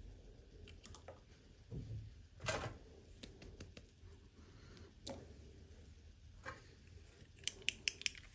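Small plastic toy pieces and packaging being handled during an unboxing: scattered soft clicks and a brief rustle, ending in a quick run of four sharp clicks.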